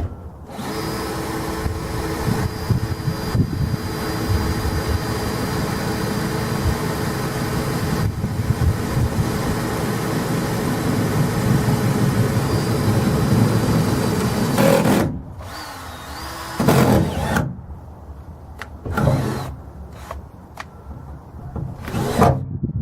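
Power drill running steadily for about fourteen seconds as it bores a mounting hole through a pickup's bed floor, then stopping; a few knocks and handling sounds follow.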